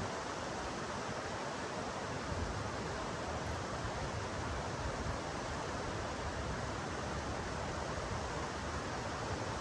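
Steady, even rush of a fast-running creek.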